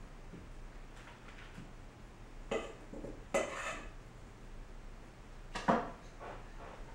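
Dishes clattering, a few short, sharp knocks and clinks spread over several seconds, the loudest about halfway through and another near the end.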